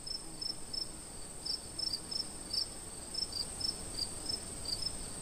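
Crickets chirping: short high chirps repeating about three times a second, over a faint steady high tone.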